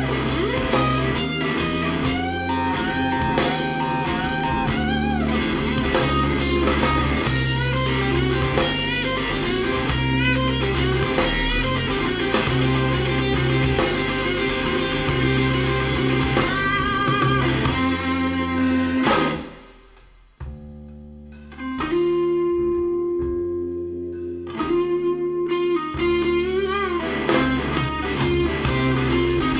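Blues-rock music with electric guitar, played back through Soviet 10GDSh full-range speaker drivers. About twenty seconds in the music drops away almost to nothing, comes back softly on a held note, then returns at full level.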